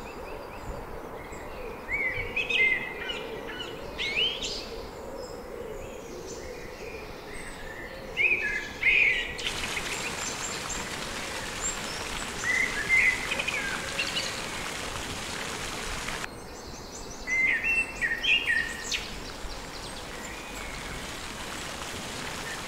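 Small birds chirping and singing in short, scattered phrases. Through the middle stretch there is also a steady hiss of splashing water from a small pond's spray fountain, which starts and stops abruptly.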